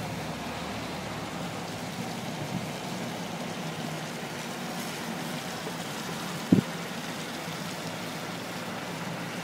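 Steady rush of a flooded, fast-flowing river. A single short low thump sounds about six and a half seconds in.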